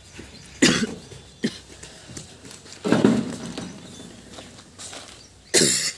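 Knocks and metal clatter from a tractor's front grille being fitted into place: four sharp clatters, the loudest about three seconds in and another just before the end.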